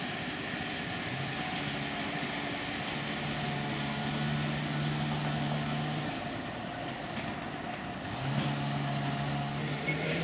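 Ride-on miniature railway train running on its track: a steady running noise with a low hum that drops away about six seconds in and returns near the end.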